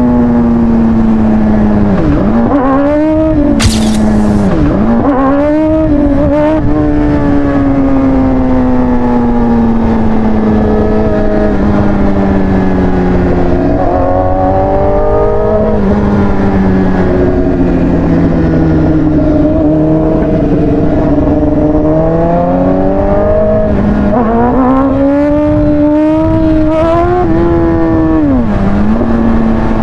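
Sport motorcycle engine heard from the rider's seat, its note sinking slowly over long stretches with several quick dips and rebounds in revs, a few near the start and one near the end, and climbing again in between, over a steady rush of wind.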